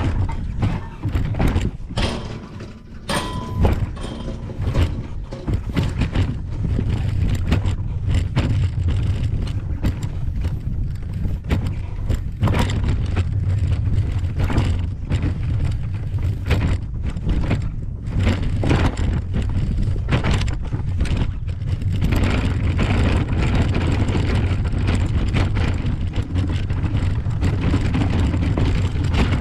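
Wheelchair rolling across a railway foot crossing's deck panels and on to the path beyond: a steady low rumble with many knocks and rattles from the wheels and chair.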